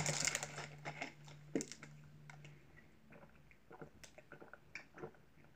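Someone drinking from a plastic bottle: quiet gulps and swallows with scattered small clicks and ticks of the bottle being handled, loudest as it is lifted at the start.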